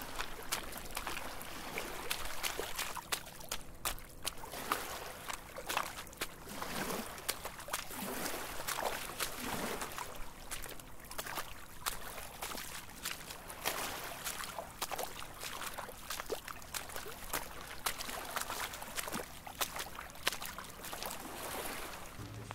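Feet wading through shallow floodwater: repeated irregular splashing and sloshing with each step.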